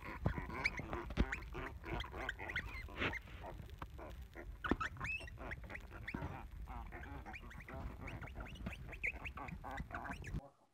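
Several young black piglets grunting and squeaking in a rapid run of short calls, which stops abruptly near the end.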